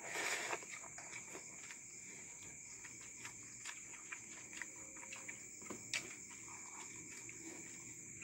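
Steady high chirring of crickets with faint scattered clicks and rustles of people eating by hand from plastic plates and a metal rice pot, a brief rustle at the start and a sharper click about six seconds in.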